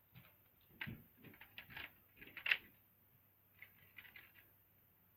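Plastic Lego pieces clicking and knocking as a Lego rifle and its magazine are handled, in a string of short, uneven clicks.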